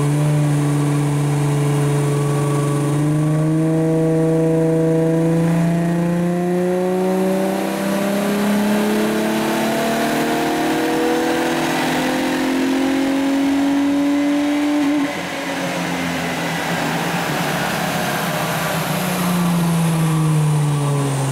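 Holden Commodore engine under full throttle on a chassis dyno power run, revs climbing steadily for about fifteen seconds, then cutting off suddenly as the throttle is lifted, with revs winding down near the end.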